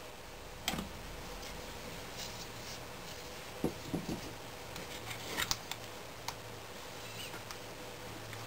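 A few light knocks and taps of a wooden sand-casting flask frame and pattern board being handled and set down on a wooden bench, over a steady faint hiss.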